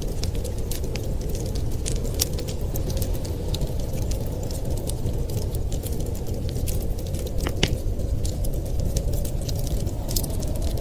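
Wood fire crackling with irregular sharp pops over a steady low rumble of blizzard wind.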